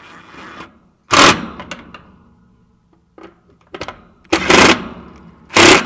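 DeWalt cordless drill-driver running in three short bursts, once about a second in and twice near the end, driving in the side mounting screws of an air-conditioner condenser's contactor, with a few light clicks between the bursts.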